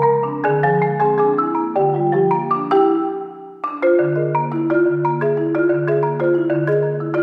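Solo Marimba One concert marimba played with mallets: a quick run of struck, ringing notes over low bass notes. A little past halfway the notes die away briefly, then a loud chord starts the playing again, with repeated low bass notes under the upper line.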